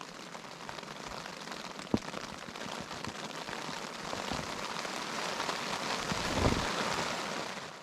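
Heavy rain drumming steadily on a tent, slowly growing louder, with one sharp drip tap about two seconds in.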